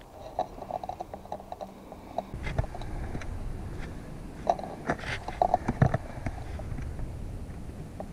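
Irregular small clicks, crackles and a few soft knocks: handling noise from a rifle held on aim with a scope-mounted camera.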